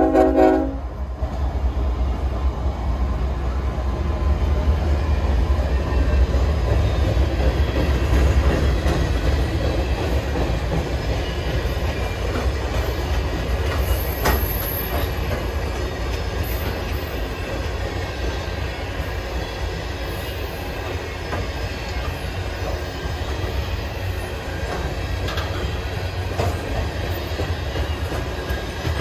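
Long manifest freight train rolling past. A heavy low locomotive rumble eases after the first several seconds and gives way to a steady clatter of freight-car wheels on the rails, with scattered knocks and a faint wheel squeal. A short pitched tone stops about a second in.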